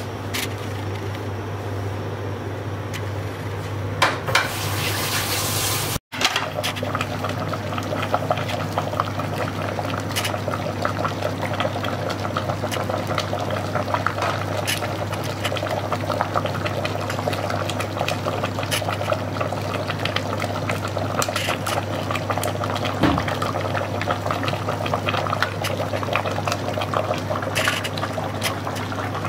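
Goat-trotter paya broth boiling hard in an opened pressure cooker pot, bubbling and crackling steadily, with a ladle stirring through it. A steady low hum runs underneath, and a brief hiss comes about four seconds in.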